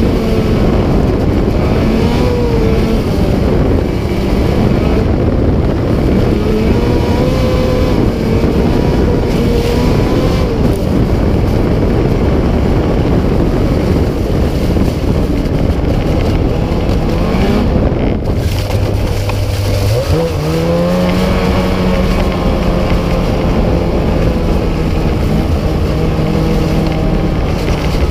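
Snowmobile engine running at speed with wind noise on the sled-mounted camera's microphone. The engine note wavers; about two-thirds of the way through it drops briefly, climbs again and then holds steady as the throttle is eased and reopened.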